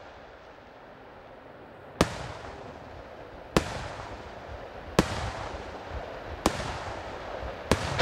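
Aerial firework shells bursting overhead: after a quiet couple of seconds, five sharp bangs come roughly every one and a half seconds, each trailing off in a rolling echo, over a growing background rumble of further bursts.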